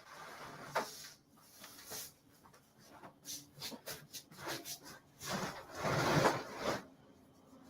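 Wooden closet panels knocking, clicking and rubbing as they are worked loose by hand, with a longer, louder rubbing sound about five to seven seconds in.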